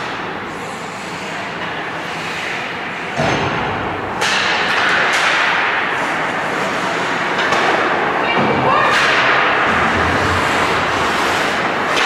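Ice hockey play on the rink: skate blades scraping and carving the ice, with knocks of sticks and puck. Sudden louder scraping starts about three, four and eight and a half seconds in.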